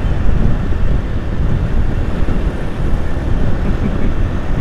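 Wind rushing over the helmet camera's microphone while riding a Yamaha Jupiter MX King motorcycle at speed, with its engine and tyre noise underneath as a steady low rumble.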